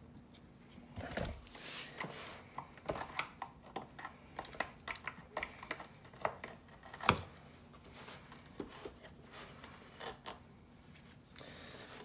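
Irregular small clicks, taps and scrapes of a metal pick and gloved hands working in the plastic brush-roll cavity of an upturned Shark Ion RV700 robot vacuum, picking out matted hair and debris. One sharper knock about seven seconds in.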